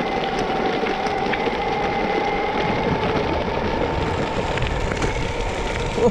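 BajaBoard S2 Atrax electric all-terrain skateboard climbing a dirt trail: a steady electric-motor whine over the rumble of its 8-inch wheels rolling on dirt and gravel, with scattered small clicks and one louder knock near the end.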